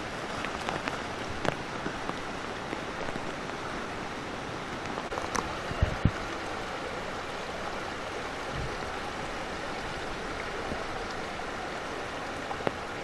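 Heavy rain falling in a downpour, a steady hiss without let-up, with a couple of brief knocks about six seconds in.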